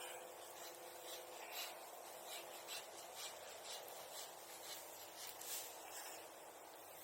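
Bonfire crackling: a steady hiss of flame with a string of sharp snaps and pops from the burning wood.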